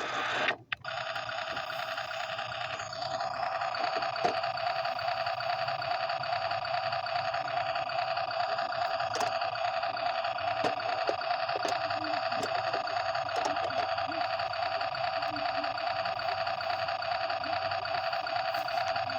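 A 1:16 toy RC truck's sound module playing an electronic engine-running loop through its small speaker: a steady buzzy drone with almost no bass. It cuts out for a moment just under a second in, then runs on unchanged.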